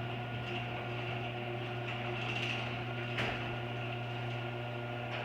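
LiftMaster 8365 chain-drive garage door opener running while it lowers the door: a steady motor hum with light chain rattle and ticks.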